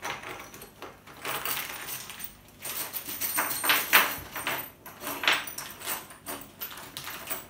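Metal screws and nuts being handled, clinking and rattling against each other in irregular bursts, loudest around the middle.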